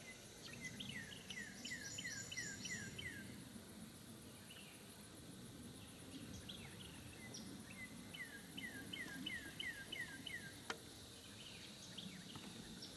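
A songbird sings two phrases of about eight quick falling whistled notes, roughly three a second, about a second in and again about eight seconds in. Insects buzz high and on and off underneath.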